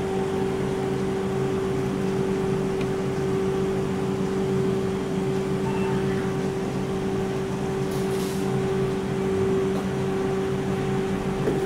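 BKN-S82 commercial soft-serve ice cream machine running with a steady, even mechanical hum as it dispenses ice cream continuously; its refrigeration compressors and beater motors are working under load.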